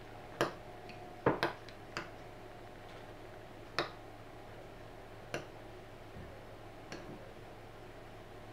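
A spoon clinking against a glass bowl while stirring thick, bead-filled slime: about seven sharp clicks at uneven intervals.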